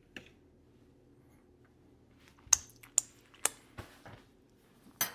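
Sharp clicks and taps of kitchenware being handled as food is plated: one faint tap near the start, a quick run of four or five about two and a half seconds in, and another near the end.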